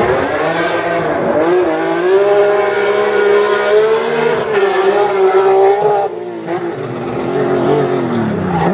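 BMW M3 engine under hard acceleration. The revs climb over about two seconds and hold high, then fall away about six seconds in as the throttle comes off, and pick up again at the very end.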